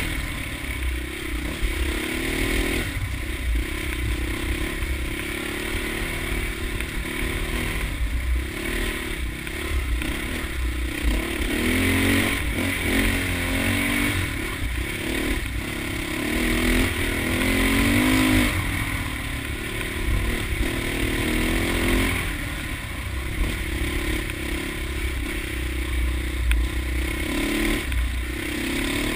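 Dirt bike engine running as it is ridden along a rough trail, the revs repeatedly rising and falling with the throttle, loudest about two-thirds of the way through, over a constant low rumble.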